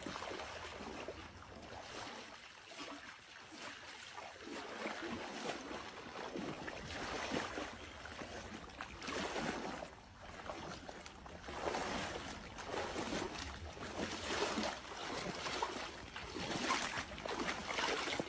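Shallow pond water sloshing and splashing in uneven surges as a person in waders wades through it, dragging a cast net.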